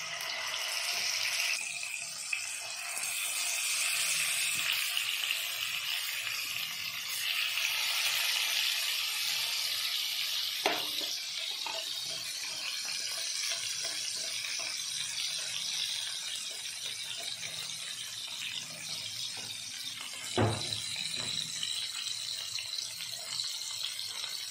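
Katla fish steaks, marinated in salt and turmeric, sizzling steadily as they fry in hot oil in a pan, with two short knocks of metal tongs against the pan.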